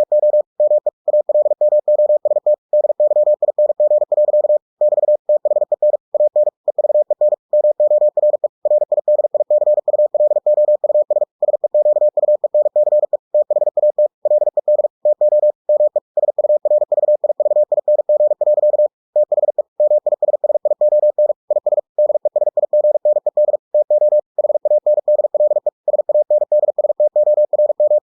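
Computer-generated Morse code (CW) sent at 45 words per minute: a single steady tone keyed rapidly on and off in dots and dashes, with slightly longer gaps between words.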